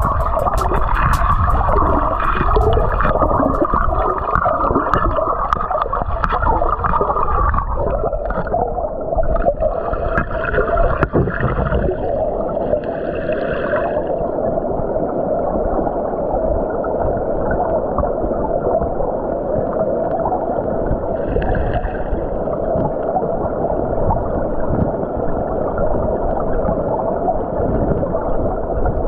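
Flowing stream water heard through an underwater camera: a steady, muffled gurgling rush.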